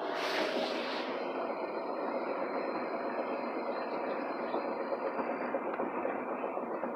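Cabin noise of a 2013 Hyundai Accent driving, with steady road and engine noise and a repeating knock. The owner likens the knock to a flat tire, feels it underfoot and suspects part of the axle. A short rush of hiss comes in the first second.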